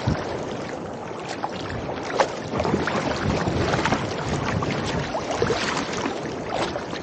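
Water splashing and sloshing against a Greenland-style kayak's hull as it is paddled through choppy swell, with irregular splashes from the paddle blades and one louder splash about two seconds in.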